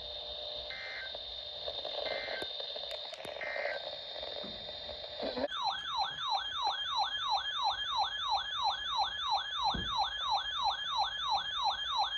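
Hiss with a steady high whine and three faint short buzzes, then, about five and a half seconds in, a loud electronic siren-like alert tone starts. It sweeps down in pitch over and over, about three times a second.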